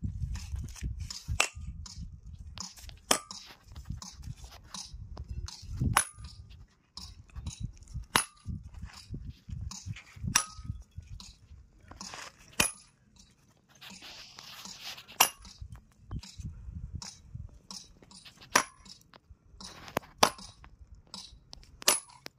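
Sledgehammer striking steel wedges driven into a row of drilled holes in a granite block, splitting the stone by the plug-and-feather method. Each blow is a sharp metallic clang with a short ring, one every couple of seconds.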